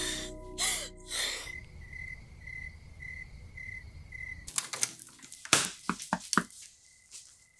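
A cricket chirping in an even pulse, about two chirps a second. About halfway through it gives way to a run of sharp knocks, like knuckles rapping on a door.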